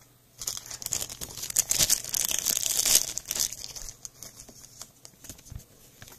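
Thin plastic crinkling and rustling as trading cards and their wrappers and sleeves are handled. It is loudest from about half a second to three seconds in, then dies down to light handling noise.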